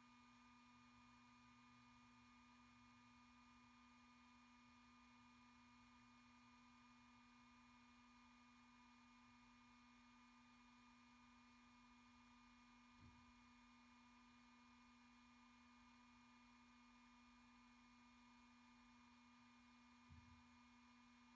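Very faint, steady whine of a 3D printer's stepper motors, a few pure tones held without change, with two soft knocks, one about two-thirds of the way in and one near the end.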